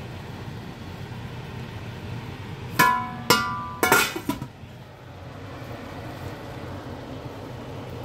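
A metal spoon clinks against a glass pot lid three times about half a second apart, each strike ringing briefly, over a steady low hum.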